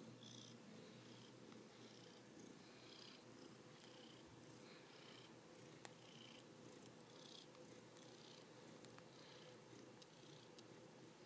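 Domestic tabby cat purring faintly close to the microphone, the purr swelling and easing about once or twice a second with its breathing. A single faint click about six seconds in.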